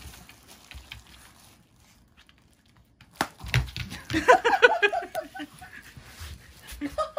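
Startled Chihuahua yapping: a sharp pop about three seconds in, then a fast string of short high yaps, about eight a second and sliding slightly down in pitch, with a few more yaps near the end.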